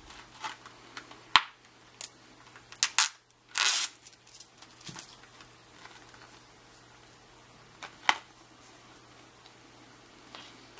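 A plastic Blu-ray case being handled as its sealing strip is peeled off: scattered clicks and short crinkly rustles, the longest about three and a half seconds in. Near eight seconds comes a sharp snap as the case is pulled open.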